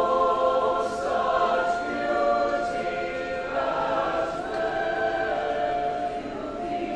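A choir singing, several voices together holding long notes that shift pitch every second or so.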